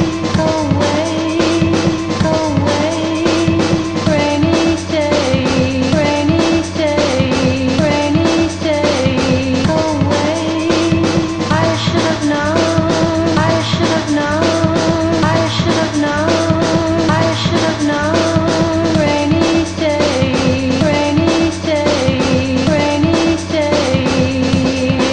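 Music: a mixtape song with a steady drum beat under a repeating melodic loop, playing without a break.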